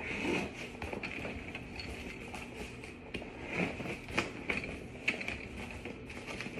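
Handling noise as a canvas laundry-hamper bag is fitted onto its wheeled metal frame: light rustling of the fabric and a few sharp small clicks and knocks, most of them between about three and a half and five seconds in.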